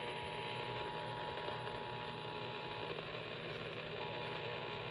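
AM radio receiver tuned to a station on dead air: steady static hiss and hum with a faint steady whistle that drops out for about a second near the middle.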